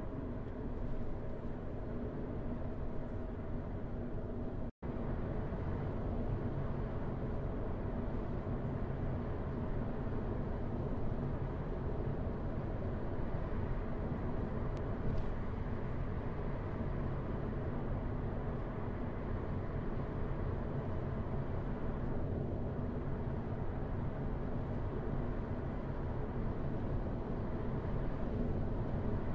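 Steady low rumble of tyres and engine heard from inside a car's cabin while it drives at moderate speed. The sound cuts out completely for an instant about five seconds in.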